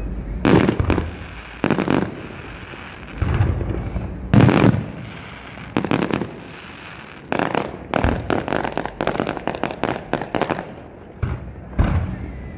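Aerial fireworks display: a string of loud shell bursts a second or so apart, with a rapid run of crackling reports from about seven to ten seconds in and a low rumble between the bursts.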